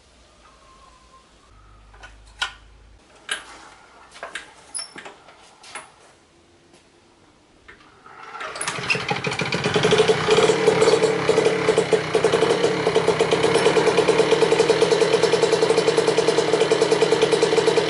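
A few scattered clicks and knocks, then about eight seconds in the Piaggio Ciao's freshly fitted 65cc two-stroke single-cylinder engine catches as the moped is pedal-started, builds up over a couple of seconds and runs steadily with a rapid, even beat.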